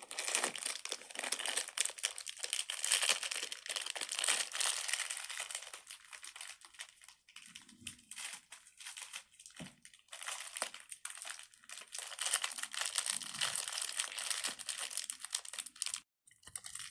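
Crinkly plastic packaging being handled and opened by hand: a dense, continuous crinkling that eases off briefly about seven seconds in and stops just before the end.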